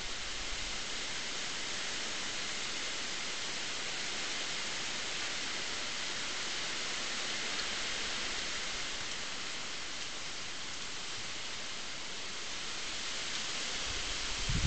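Steady, even hiss from a night-vision garden camera's microphone, with a low bump near the end.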